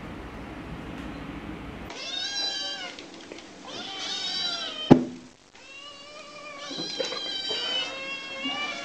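Several kittens meowing, many high, overlapping cries, with one sharp knock about five seconds in. Before the meowing starts, about two seconds of low, steady background noise.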